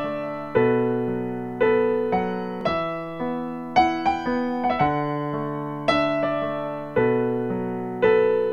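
Background piano music: slow, gentle chords, each one struck and then left to fade before the next.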